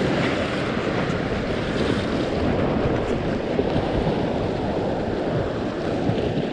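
Sea waves washing against shoreline rocks, a steady rushing noise, with wind buffeting the microphone.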